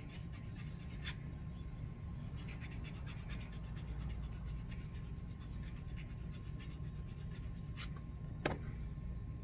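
A cheap nail file rasping back and forth in quick short strokes, sanding down the rough edge of a cross-stitch keychain piece, with a couple of sharper clicks.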